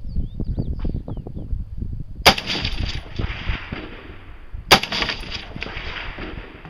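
Two rifle shots about two and a half seconds apart, each with a long echoing tail.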